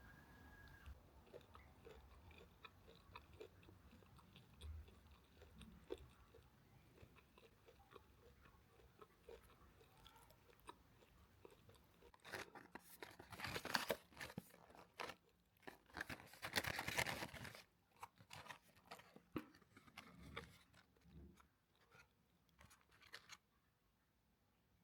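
Close-up eating sounds: a person biting into and chewing crispy fried chicken. Soft chewing at first, then two loud runs of crunching about halfway through, tapering to softer chewing near the end.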